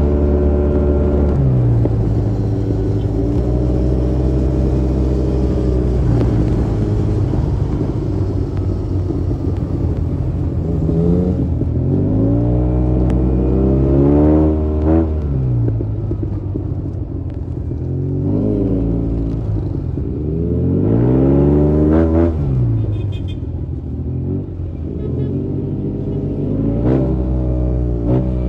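Motorcycle engine revving up and easing off again and again, its pitch rising and falling in several sweeps over a steady low rumble.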